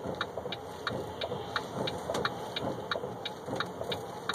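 Truck engine running steadily, heard inside the cab, under a light, regular ticking about three times a second.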